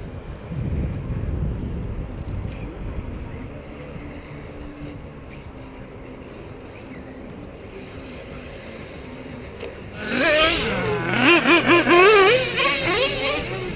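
Low, steady rumbling noise, then about ten seconds in, RC buggy motors revving loudly. Their high whine rises and falls rapidly with throttle blips.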